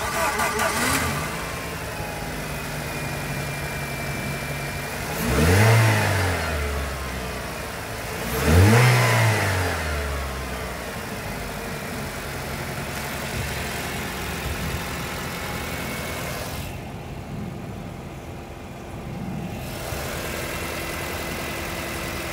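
2009 Nissan Tiida's four-cylinder petrol engine idling steadily under an open bonnet. It is revved twice, about five and a half and eight and a half seconds in, each time rising and falling back to idle.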